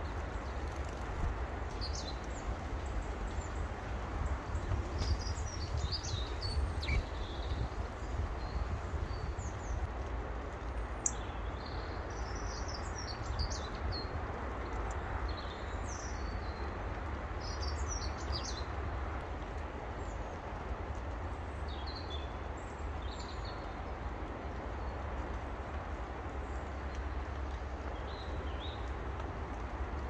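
Small garden birds chirping in short, scattered high calls, busiest through the first two-thirds and sparser later, over a steady low background rumble.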